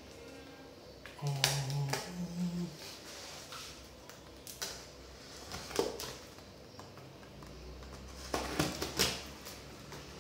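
A knife slicing through packing tape and the plastic courier wrapping of a parcel: scattered sharp scrapes and crackles, with a quick cluster of them near the end.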